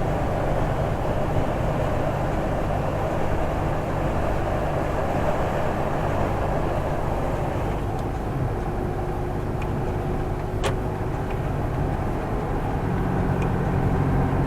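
Heavy truck heard from inside the cab while driving: a steady low engine drone under road and tyre noise, with one sharp click about two-thirds of the way through.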